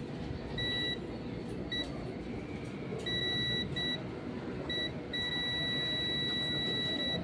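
Digital multimeter's continuity buzzer beeping on and off as the probes make and lose contact, then sounding continuously for the last two seconds. The steady beep signals a short circuit through a shorted capacitor.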